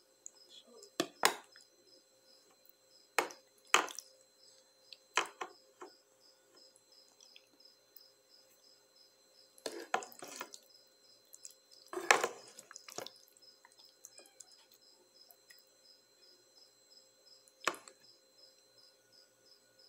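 A metal spoon knocks and scrapes against an aluminium pot while creamy pasta in white sauce is stirred, in a dozen or so scattered clanks, the loudest about twelve seconds in. Behind it a cricket chirps steadily, about twice a second.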